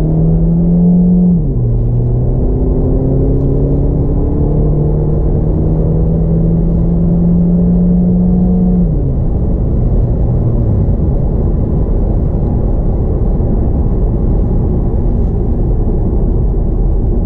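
Hybrid car's 1.6-litre four-cylinder petrol engine under hard acceleration, heard from inside the cabin. The dual-clutch gearbox upshifts once about a second and a half in, dropping the pitch, and the engine then rises steadily in pitch. About nine seconds in the throttle is lifted and the engine sound falls away, leaving road and tyre rumble as the car coasts on electric power.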